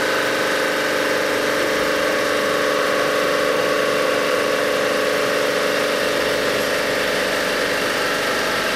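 Sunnen HBS-1300 cylinder-head resurfacing machine running steadily with several whining tones, resurfacing a welded Volvo 240 cylinder head flat.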